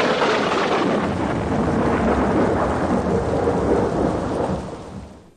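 Thunder-and-rain stage sound effect played over the theatre's speakers: a loud, rumbling storm with heavy rain noise that fades away near the end.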